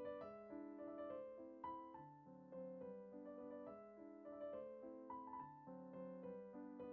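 Quiet background piano music: a slow melody of single notes over soft chords.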